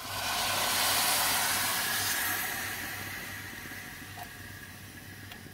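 Water poured from a jug into a hot frying pan of sautéed rice and vegetables, hissing and steaming as it hits the pan. The hiss swells in the first second and fades away over the next few seconds.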